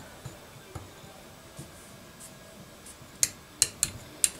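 Outside micrometer's ratchet stop clicking as the thimble is turned down onto a piston's thrust face to measure it. A few faint handling clicks come first, then four sharp clicks in just over a second near the end.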